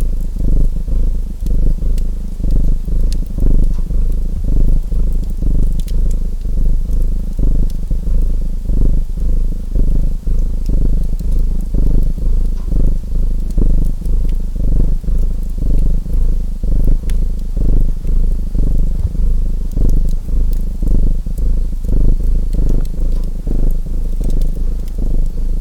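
Domestic cat purring loudly and steadily close to the microphone, swelling and fading about once a second with its breathing. Sparse small crackles and pops from a wood fire sound above it.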